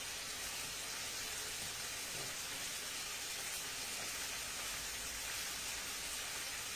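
Steady sizzling of a frying pan on a gas hob: prawn shells browning in oil as the base for a bisque.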